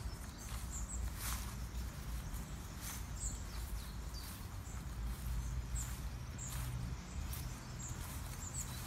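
Outdoor ambience: a steady low rumble with scattered soft rustles and taps, and a few brief high chirps.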